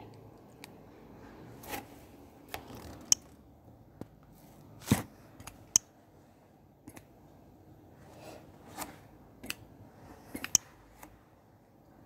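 Faint scattered clicks and soft rustles in a quiet room, about a dozen sharp ticks spread irregularly: handling noise near the microphone.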